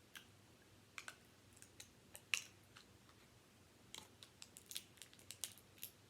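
Faint, irregular clicks and light taps of small plastic toy pieces being handled, with one louder click about two and a half seconds in and a quicker run of clicks in the last two seconds.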